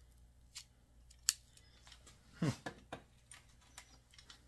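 Rusty vise-grip locking pliers being squeezed and worked: a few sharp metal clicks and a brief creak as the rust-seized jaws start to move.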